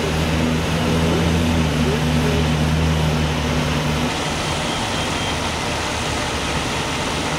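Fire engine's diesel engine idling with a steady low hum that cuts off about four seconds in, leaving a steady rushing noise.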